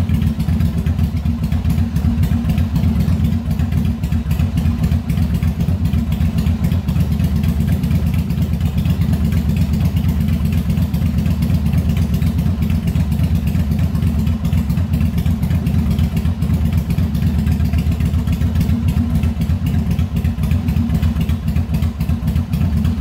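1988 Yamaha Virago 1100's air-cooled V-twin idling at operating temperature as a steady low rumble, while its twin carburettors are being balanced.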